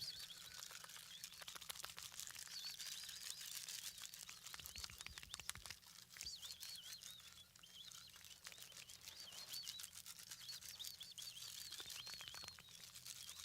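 Faint outdoor ambience of small birds chirping, with many scattered light clicks.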